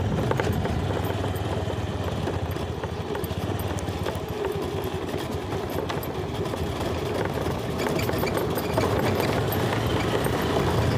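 Motorcycle engine running steadily at low speed along a rough concrete road, a constant low hum under road noise, growing slightly louder near the end.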